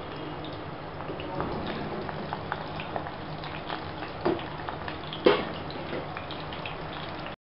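Garlic pods deep-frying in hot oil in a pot: a steady sizzle with scattered small crackles and pops, two louder pops about four and five seconds in.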